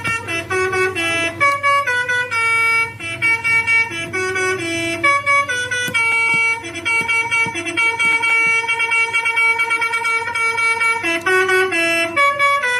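Home-built Arduino electric telolet basuri bus horn playing a melody of horn-like notes, stepping from pitch to pitch with some quick runs and some longer held tones.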